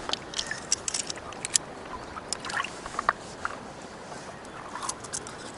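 Scattered light clicks and small splashes from handling fish on a metal snap stringer in shallow water, over a steady wash of water.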